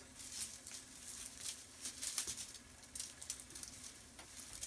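Rustling and light irregular clicks of packaging and small plastic parts being handled and rummaged through.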